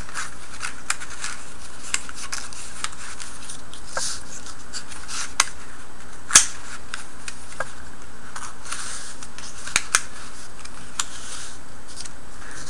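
Cardstock strips rustling and sliding as they are woven over and under the slits of a cut paper background, with scattered sharp clicks and taps of paper on the cutting mat; the loudest snap comes about six seconds in and a quick pair near ten seconds. A steady faint hiss lies under it all.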